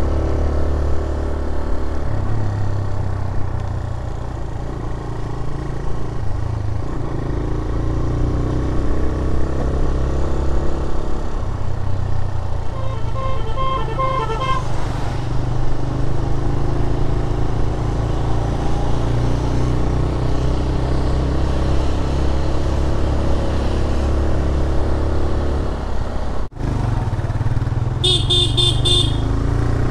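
TVS Raider 125 motorcycle's single-cylinder engine running on the move, under a steady low rumble of engine and wind. A vehicle horn gives a run of short beeps about halfway through, and higher, rapid horn beeps sound near the end.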